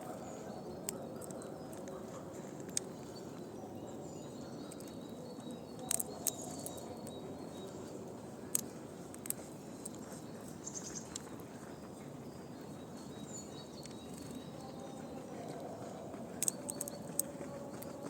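Outdoor ambience: a steady low background hum with faint bird chirps and a handful of sharp, scattered clicks.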